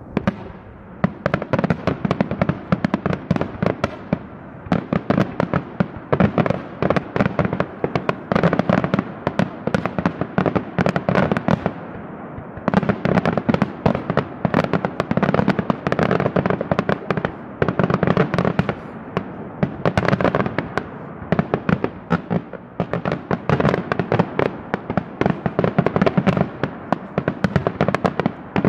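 Daytime fireworks display: aerial shells bursting in rapid, near-continuous volleys of firecracker bangs and crackling, with brief lulls about 4 and 12 seconds in.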